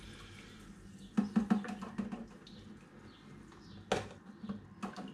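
Foil pouch of liquid cider enhancer being squeezed and wrung out over a plastic brewing bucket: irregular crinkling and crackling of the foil, a cluster about a second in, a sharp crinkle near four seconds and a few more near the end.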